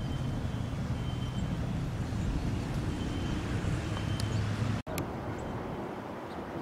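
Outdoor ambience: a steady low rumble with hiss and a few faint high chirps. It breaks off abruptly about five seconds in, after which the low rumble is much weaker.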